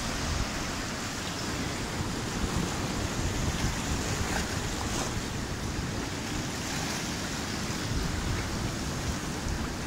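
Ocean surf washing steadily over a rocky shore, with wind buffeting the microphone.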